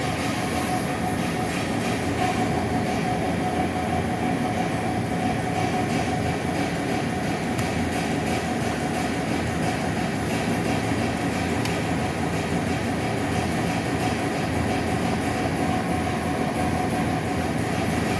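Steady, continuous mechanical rumble with a constant droning tone, without separate bangs.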